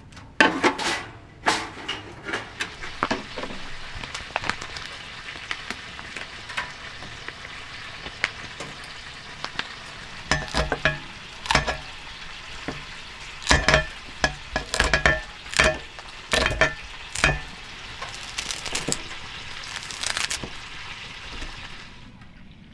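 Food sizzling in a frying pan, with a utensil stirring and knocking against the pan. The knocks and clinks come thickest in the second half, and the sizzle stops shortly before the end.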